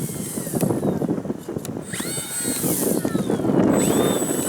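Electric motor and propeller of an E-flite PT-17 RC biplane whining, spooling up sharply twice and winding back down as the throttle is worked on a gusty landing approach. Wind rumbles on the microphone underneath.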